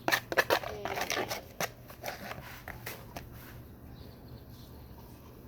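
Sticky clicking and squelching of gooey homemade slime being squeezed and pulled by hand: a quick run of crackles in the first second and a half, then fainter handling.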